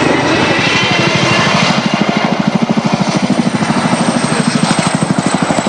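RAF Chinook tandem-rotor helicopter in a steep nose-down dive, its rotors beating with a rapid, regular blade slap that grows stronger about a second and a half in, over a steady high whine.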